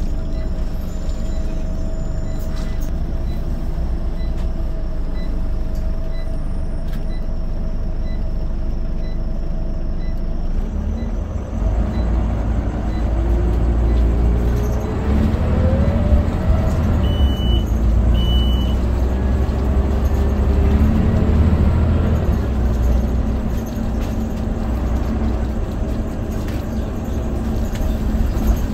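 Scania OmniCity single-decker bus heard from inside the saloon: the diesel engine runs steadily with a regular ticking, then about twelve seconds in it pulls away, louder and rising in pitch as it accelerates. Two short beeps sound partway through the acceleration.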